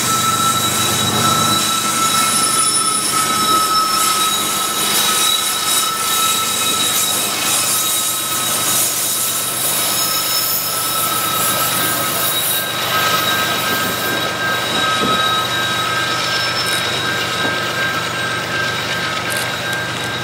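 Freight train rolling past with steady high-pitched wheel squeal over the rumble of the cars. A second squealing tone joins about two-thirds of the way through.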